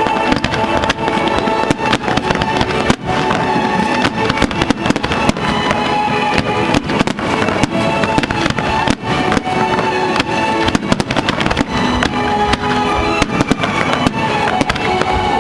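Fireworks display: aerial shells bursting in quick succession, several bangs a second with crackling, over continuous music.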